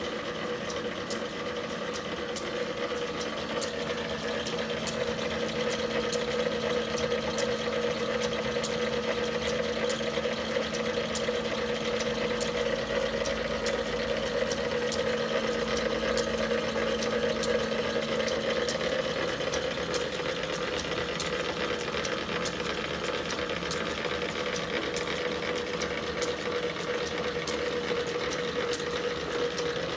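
Belt-driven vintage pillar drill running under power from a 1926 dual-wound three-phase electric motor: a steady mechanical hum with a regular light click about twice a second. A lower part of the hum drops out about two-thirds of the way through.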